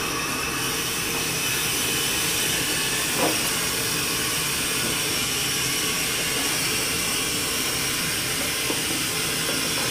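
Compressed carbon dioxide gas hissing steadily from a hose into a lidded glass tank, filling a rat euthanasia chamber with CO2. The hiss comes on suddenly and holds steady.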